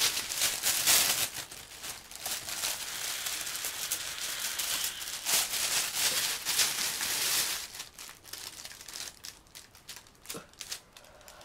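Clear plastic balloon bag of a Volcano vaporizer crinkling and crackling as it is handled and squeezed, dense for about the first seven seconds, then thinning to scattered crackles.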